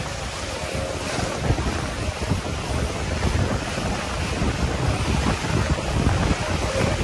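Rush of water along the hull of a Melges 24 sailboat sailing fast downwind, under steady wind buffeting on the microphone.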